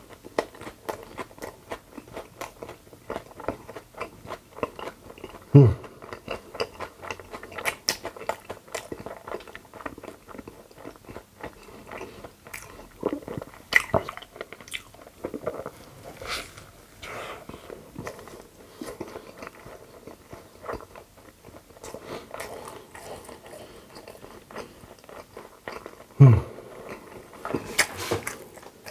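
Close-miked chewing of a soft, saucy multi-patty beef burger (a Burger King Stacker 4 Whopper): wet, smacking mouth sounds with small crunches. Twice, about a fifth of the way in and near the end, a louder low sound drops in pitch.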